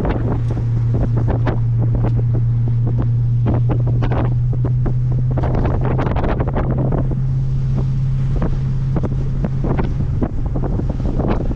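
Wind buffeting hard on the microphone in uneven gusts. Underneath is the steady low drone of the 2007 Audi B7 RS4's 4.2-litre V8, held at constant revs.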